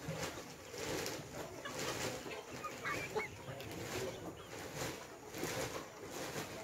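A flock of 12-week-old layer pullets clucking and calling, many birds at once, with a few higher, wavering calls about three seconds in.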